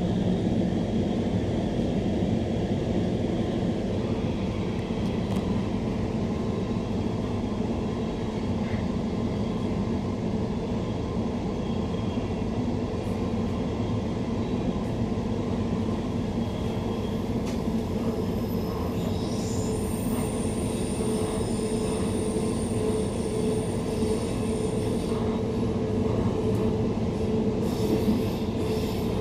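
Interior running noise of a Queensland Rail NGR electric multiple unit (Bombardier-built) under way: a steady rumble of wheels on rail with a constant hum. A faint high-pitched whine joins for several seconds past the middle.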